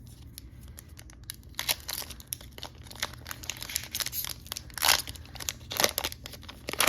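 Foil Pokémon booster-pack wrapper crinkling and tearing as it is ripped open, a run of crackling rustles that starts about a second and a half in, with a few louder rips near the end.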